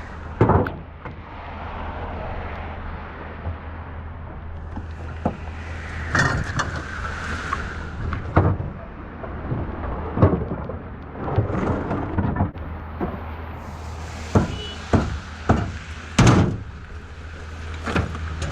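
A steady low engine hum, with a series of irregular knocks and bangs over it.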